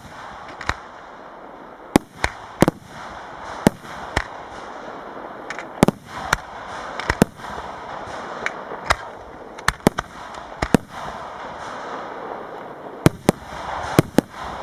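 Professional aerial fireworks display: shells bursting in sharp bangs at irregular intervals, often two or three in quick succession, over a continuous rushing noise between the reports.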